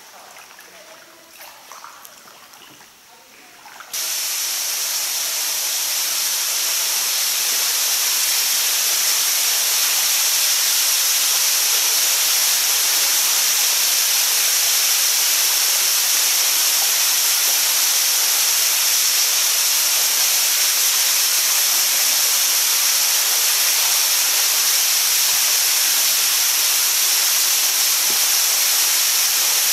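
A waterfall pouring into a sea cave: a loud, steady rushing hiss that starts suddenly about four seconds in and swells a little at first. Before it there are only faint sounds.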